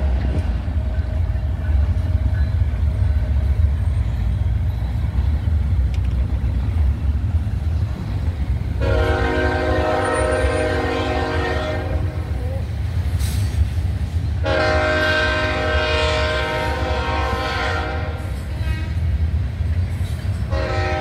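Union Pacific GE ET44AH diesel locomotive's air horn sounding long chords, as for a grade crossing. One blast fades out just after the start, two long blasts of about three and four seconds come about nine and fourteen seconds in, and another begins near the end. Under the horn runs a steady low rumble of the passing train.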